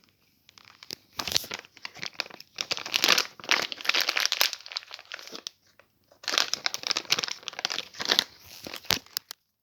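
Crinkling of a cat-treat bag being handled, in two long spells of dense crackle with a short pause between.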